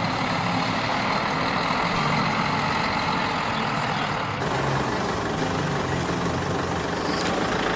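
Diesel engine of a heavy machine, most likely a stump-removal excavator, running steadily under load, with a continuous hiss of machine noise over the engine hum.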